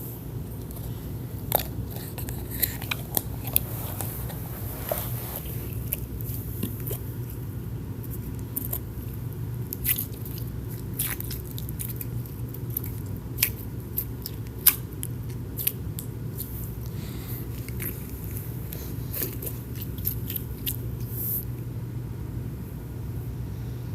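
Slime being squeezed and worked by hand, giving scattered small crackling pops and squishes, over a steady low hum.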